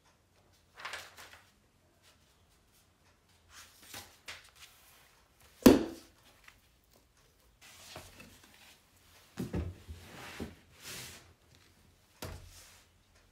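Pages of a thick textbook being handled and flipped, a string of separate paper rustles, with one loud, sharp thud a little before the middle.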